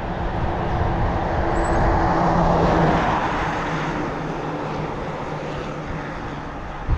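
A car passing on the road, its tyre and engine noise swelling to a peak a couple of seconds in and then fading.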